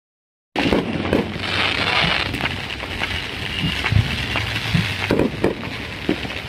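Fireworks going off: a dense, continuous crackling with scattered sharper pops, starting about half a second in after a moment of silence.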